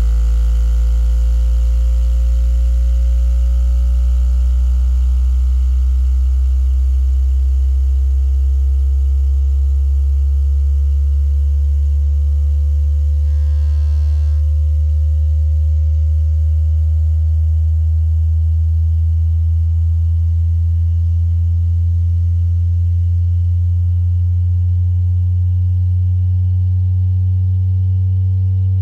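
Sine sweep played through a 6.5-inch Ground Zero subwoofer in a ported enclosure: a strong, steady low bass tone climbing slowly in pitch, with fainter higher tones rising alongside it. It is the test signal used to find the box's port tuning frequency by watching the cone's movement.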